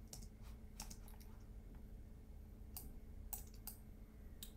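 Faint, irregular clicks from a computer mouse and keyboard, about nine in all, bunched near the start and again around the third second, over a faint steady low hum.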